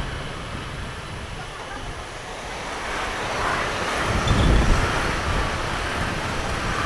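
Wind rushing over a motorcycle rider's microphone over the low hum of the bike riding along a street, with another motorcycle passing close by about four seconds in, the loudest moment.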